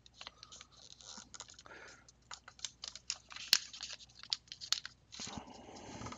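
A sheet of origami paper rustling and crinkling as it is worked by hand, with scattered sharp ticks and crackles as creases are pressed and a valley fold is reversed into a mountain fold; the two sharpest ticks come about three and a half and nearly five seconds in.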